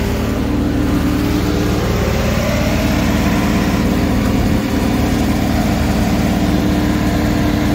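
Engine powering a center pivot's generator, rising in speed over the first few seconds and then running steady and fast. It is overspeeding: the generator's output has gone over 480 to 500 volts, so the engine needs idling down.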